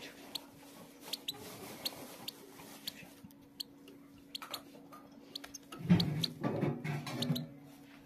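Faint, short, high squeaks repeating irregularly, typical of a newly hatched goldfinch × canary hybrid chick cheeping in the nest, over a steady low hum. A louder, lower jumble of sound comes between about six and seven and a half seconds in.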